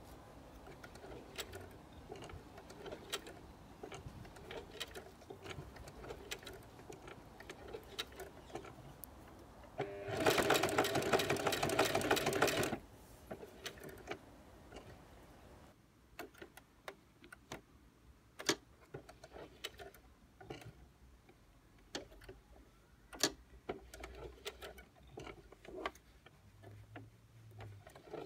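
Singer Heavy Duty 4432 sewing machine, fitted with a walking foot, running fast for about three seconds about ten seconds in, then stopping; light scattered clicks and taps before and after.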